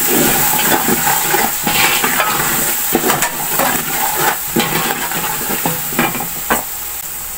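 Spiced tomato-and-onion masala sizzling in hot oil in a large metal pot while a metal spoon stirs it, scraping and knocking against the pot every second or so. This is the bhuna stage, where the masala is fried in the oil.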